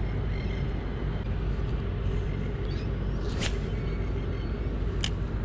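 Steady low rumble of outdoor background noise, with two sharp clicks, about three and a half and five seconds in, from handling the spinning rod and reel.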